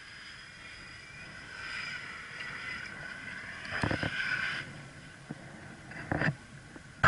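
Red Jeep Liberty race truck's engine revving hard on the dirt slalom course, its pitch climbing for several seconds and then falling away. There are two sharp thumps, about four and six seconds in.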